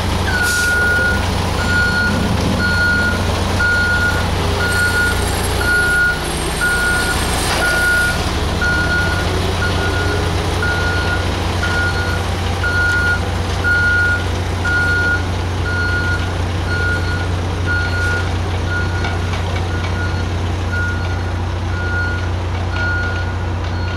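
Front-loader garbage truck backing up: its reversing alarm beeps steadily about once a second over the low, even running of the diesel engine.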